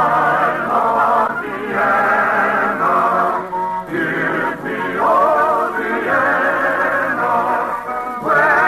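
Orchestral waltz-song music with singing, from an early-1950s radio operetta broadcast: a wavering, vibrato melody over orchestral accompaniment.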